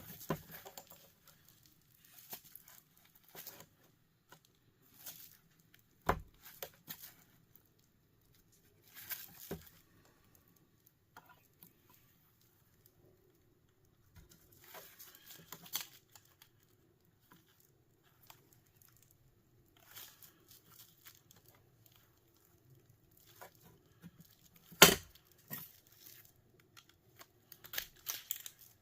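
Hand disassembly of a small gear motor: scattered clicks, scrapes and rattles of small plastic and metal parts with quiet gaps between, and a sharp knock about six seconds in and a louder one near the end.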